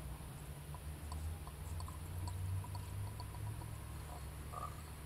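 Coolant pouring from a plastic jug into the cooling-system filler of a BMW E36, engine off, as the system is filled before bleeding. A steady low rumble sits under it.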